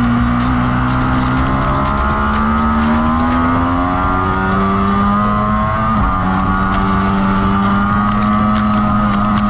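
2020 Ducati Streetfighter V4's V4 engine pulling hard on track, its pitch rising for several seconds. About six seconds in it shifts quickly and then holds at a steady pitch.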